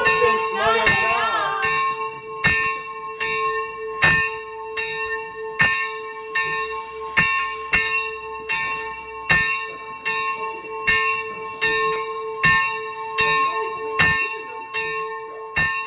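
A single church bell ringing steadily, struck about once every three-quarters of a second, its tone humming on between strokes. A voice is heard over it for the first couple of seconds.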